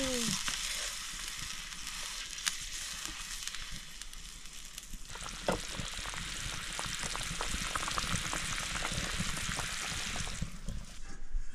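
Chicken curry sizzling as it fries in oil in a pan, a steady hiss with scattered crackles and pops; the sizzle drops away near the end.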